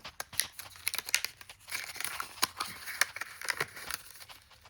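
Plastic and cardboard packaging of a memory card being handled and pulled at: irregular crinkling with many sharp clicks and crackles, densest about two seconds in.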